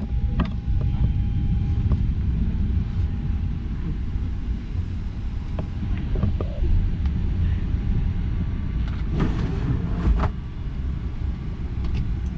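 Steady low rumble of an airliner cabin's background noise, with a few light knocks about nine and ten seconds in.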